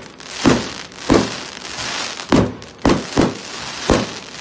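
Fireworks going off in a run of about six sharp bangs at uneven intervals, each with a short low rumble after it, over a continuous hiss and crackle.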